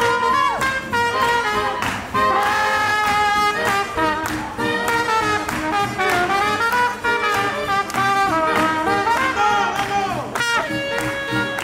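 Small marching jazz band playing a swing tune: a trumpet leads over saxophones and a clarinet, with an even beat.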